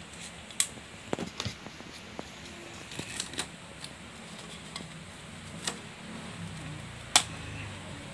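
Plastic cling wrap crinkling and crackling with scattered sharp clicks as it is handled over a ceramic bowl; the sharpest click comes about seven seconds in.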